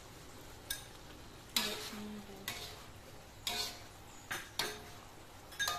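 Metal spatula stirring and knocking against a metal wok, giving a series of sharp clanks that ring briefly, about one a second, as a cornstarch slurry is stirred into a tomato sauce to thicken it.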